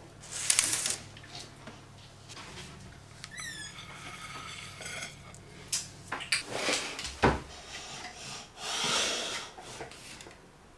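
Kitchen handling sounds: a pizza slice lifted off a baking sheet with a metal server and set on a ceramic plate, with scattered knocks, clatter and scraping. A brief high-pitched squeak comes about three and a half seconds in.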